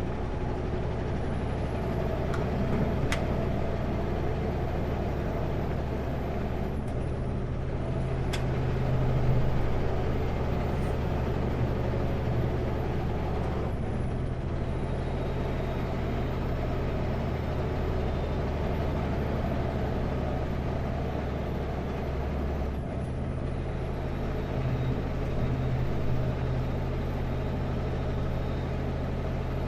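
Kenworth W900L semi truck's diesel engine running under way, a steady drone heard from inside the cab. The drone changes pitch abruptly about seven seconds in and again around twenty-three seconds in.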